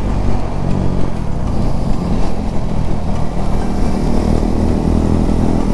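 Motorcycle engine running at road speed with wind noise over the microphone, the rider easing off as the bike slows into a bend.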